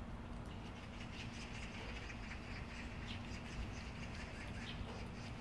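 A cat eating from a bowl: faint, irregular short smacking and clicking sounds, over a steady low hum.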